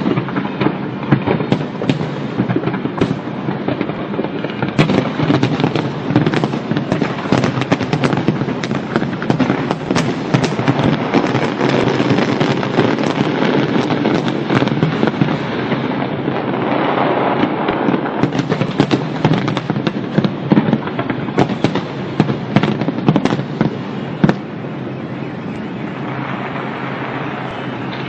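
Fireworks going off in a dense, continuous barrage of crackling and rapid sharp bangs. The sharp bangs stop about four seconds before the end, leaving a steadier crackling hiss.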